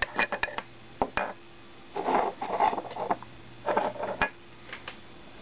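Empty plastic inkjet cartridge shell handled on a desk: a quick run of sharp clicks and taps, then two spells of plastic rubbing and scraping, the second ending in a sharp click.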